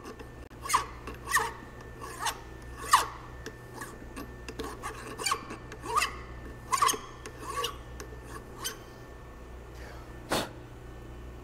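Hand file being pushed in short strokes across a metal driveshaft yoke, about a dozen rasping strokes less than a second apart. The strokes stop about nine seconds in, and one more comes shortly before the end.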